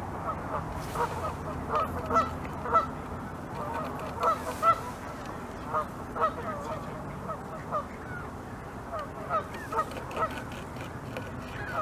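Geese honking repeatedly, short pitched calls coming in irregular clusters, over a low steady rumble. Underneath, faint crunches of a beaver's teeth gnawing into a branch.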